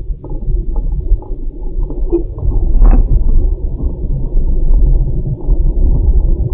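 Low rumble of a car's engine and road noise, heard from inside the cabin, with one short knock about three seconds in.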